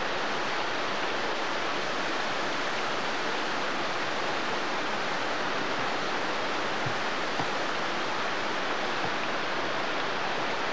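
Steady rush of a waterfall cascading over rocks.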